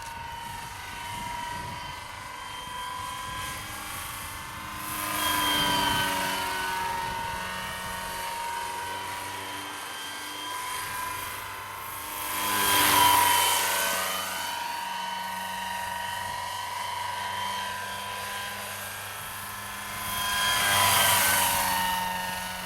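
Electric RC scale model helicopter, a JetRanger with a four-blade main rotor of 1600 mm diameter, flying. A steady high motor and gear whine runs over the rotor noise. It swells three times as the model passes close, loudest about 13 seconds in, and the pitch bends with each pass.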